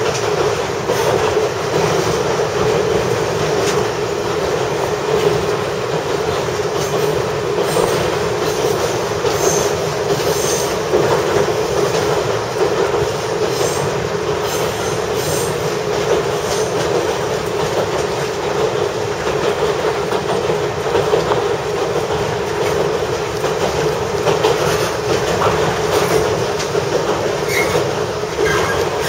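Kominato Railway KiHa 200 diesel railcar running along rough, poorly kept track, heard from just behind the cab: a steady engine and running noise with wheels clicking over the rails. A few short wheel squeals come near the end.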